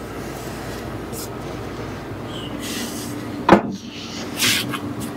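Hand work at the kitchen sink's drain opening as the old strainer's rim is cleaned off: a steady low hum throughout, one sharp knock about three and a half seconds in, then a brief scrape.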